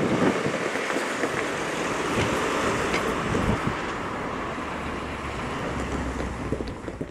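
Road traffic crossing a railway level crossing: cars and a van driving over the crossing close by, a steady mix of tyre and engine noise with a low rumble in the second half, fading out near the end.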